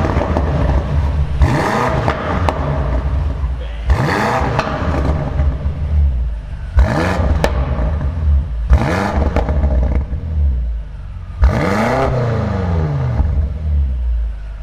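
2018 BMW M5 F90's twin-turbo V8 revved through its quad exhaust: about six sharp throttle blips every two seconds or so, each rising in pitch and falling back to a steady idle.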